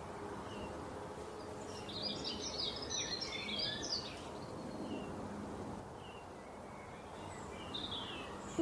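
Small birds chirping and twittering over a steady background hiss, with a burst of busier chatter about two to four seconds in.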